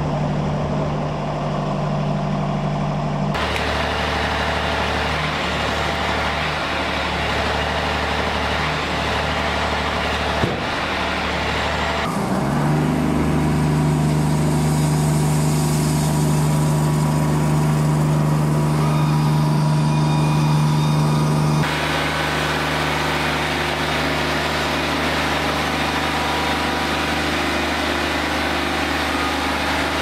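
Wood-Mizer LT40 Wide band sawmill running under load, its engine droning steadily while the band blade saws along a log. The sound changes abruptly about three seconds in, again near twelve seconds when it grows louder, and again about two-thirds through. There is one sharp click about ten seconds in.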